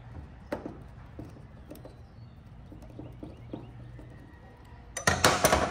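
Faint clicks and scrapes of a screwdriver working the centre screw of a chainsaw's rewind starter pulley, then a loud clatter lasting about half a second near the end.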